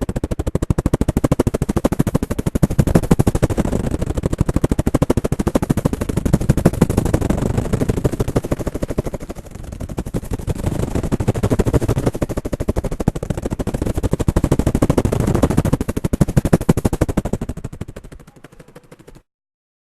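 Human vocal mimicry of a helicopter into a desktop microphone: a fast, even chopping pulse imitating the rotor blades. It dips briefly a little before halfway, then fades and stops abruptly near the end.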